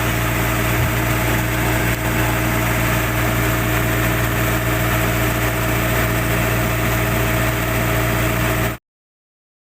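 Generator set's engine running steadily on its test run after a starter motor replacement, then cutting off suddenly near the end.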